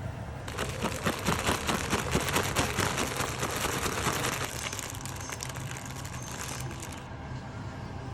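Bean sprouts being stirred and tossed, a dense crackling rustle made of many quick clicks that eases off about halfway through and stops about a second before the end, over a steady low hum.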